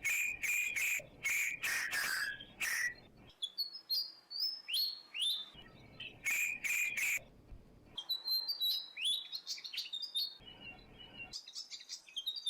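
Birds calling: bursts of loud, harsh calls near the start and again in the middle, with short rising chirps between them.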